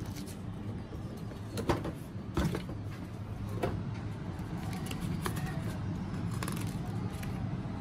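A cardboard box and a folded paper instruction leaflet being handled and opened out: a few sharp clicks and rustles, the loudest two coming about two and two and a half seconds in, over a steady low background hum.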